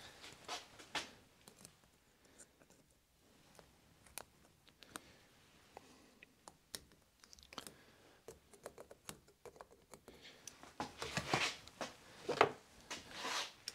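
Small metal clicks and short scrapes as a circlip is worked onto a gear shaft in the aluminium housing of a Toro eFlex groomer gearbox. The clicks are sparse at first and get busier and louder near the end.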